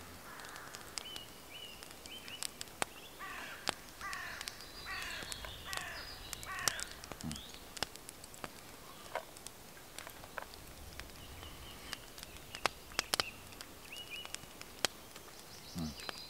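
A corvid calling a series of harsh caws about three to seven seconds in, with short high bird calls before and after, over sharp scattered crackling clicks from a wood campfire.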